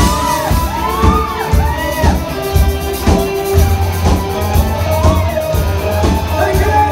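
Live rock band playing at full volume, recorded on a phone from the audience: a steady drum beat and bass under guitars, with a lead part swooping up and down in pitch.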